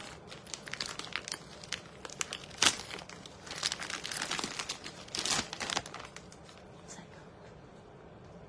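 Wrapping crinkling and tearing as a handbag is unwrapped by hand, in irregular crackles loudest about two and a half seconds in and again about five seconds in, dying away after about six seconds.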